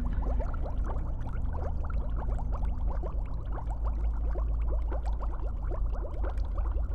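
Liquid bubbling: a dense, irregular stream of small bubble plops and gurgles over a steady low hum.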